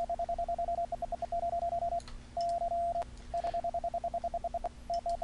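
Morse code sidetone from the Dahdidah software CW keyer, worked by iambic paddles: one steady mid-pitched beep keyed in fast runs of dits, with one longer held dah about two and a half seconds in and a few last dits near the end.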